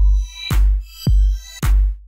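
Electronic background music with a steady kick-drum beat about twice a second under a sustained synth chord.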